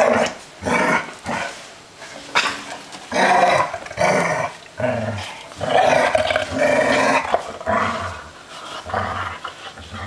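Vizslas, smooth-coated and wire-haired, play-growling in repeated bursts of a second or less as they wrestle.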